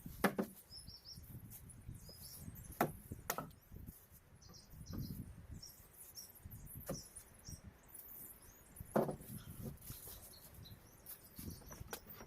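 A few scattered knocks and clatters of timber or tools being handled, with faint birds chirping in between.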